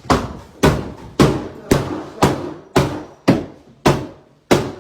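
Hammer blows struck in a steady rhythm, about two a second, nine in all, each hit ringing briefly. This fits a door being knocked off its hinges.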